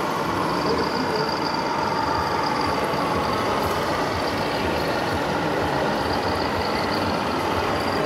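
Radio-controlled Mercedes-Benz scale heavy-haul truck driving slowly with a pipe-laden trailer, giving a steady truck-like running sound over exhibition-hall background noise.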